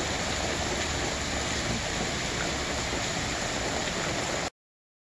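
Steady heavy rain falling on a swimming pool's water surface and the surrounding pavers, an even hiss that cuts off suddenly near the end.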